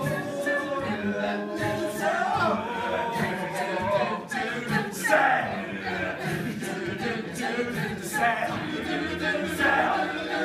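Live mixed-voice a cappella group singing in harmony, with a lead voice gliding through sustained notes over a steady vocal-percussion beat.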